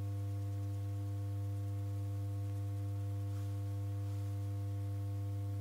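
A steady drone of several low held tones, unchanging throughout.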